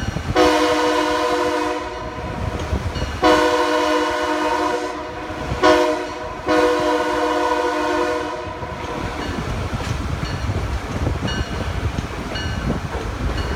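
Multi-chime train horn blowing the grade-crossing signal: two long blasts, a short one, then a final long blast. The train then rolls on with a steady rumble and the rhythmic clicking of wheels over rail joints.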